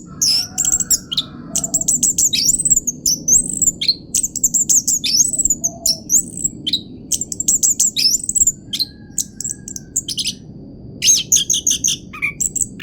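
Orange-headed thrush singing a continuous rolling song: fast high-pitched trills of rapidly repeated notes alternating with short downward-sweeping whistles, with only brief pauses between phrases.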